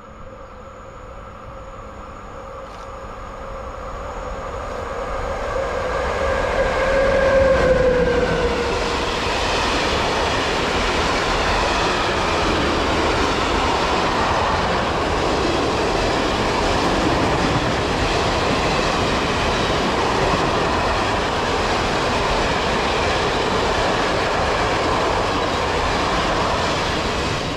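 An electric train passing close at speed: a whine from the approaching locomotive or unit grows louder and drops in pitch as it goes by about eight seconds in, followed by a long steady rumble and clatter of the cars running past.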